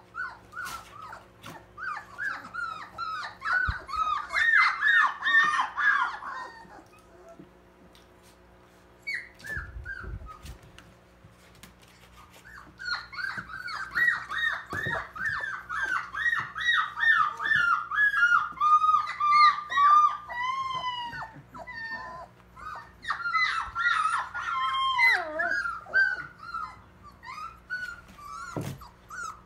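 Smooth collie puppies whimpering and squealing in rapid runs of short, high-pitched cries. The cries come in two long spells with a quieter pause of several seconds in the middle.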